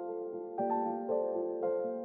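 Soft background piano music, a few chords struck within two seconds, each ringing and decaying.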